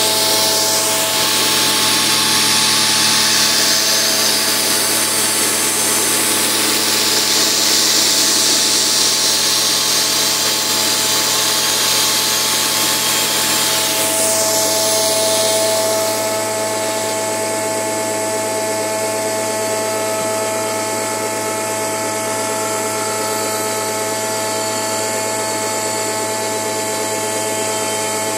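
Angle grinder grinding rust off the spinning cutterhead spindle of a planer-thicknesser: steady motor whine under a harsh grinding hiss, which stops a little past halfway while the motor keeps running steadily.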